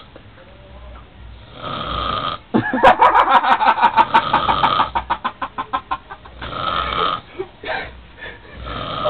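An intoxicated old man snoring heavily in deep sleep, a rasping snore every two to three seconds. About two and a half seconds in, a loud run of quick pulses lasts about three seconds.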